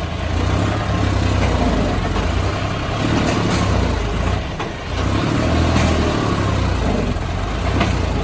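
Heavy machine's engine running under load, a deep rumble that rises and falls in pitch, with a brief dip about five seconds in.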